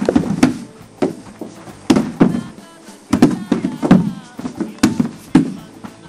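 About ten heavy thumps at uneven intervals, with music playing.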